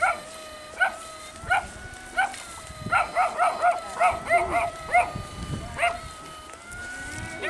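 Electrofishing shocker giving a steady high whine, broken by short sharp chirps at the same pitch. The chirps come about once every 0.7 s at first, then in a quick run of about five a second through the middle. A few low thuds follow near the end.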